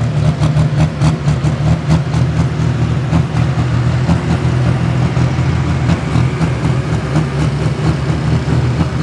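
Turbocharged diesel engine of a pro stock pulling tractor, running loud and steady.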